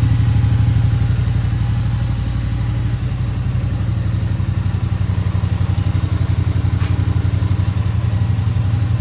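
Yamaha MT-07's parallel-twin engine idling steadily through a newly fitted Akrapovic exhaust, an even, pulsing low rumble.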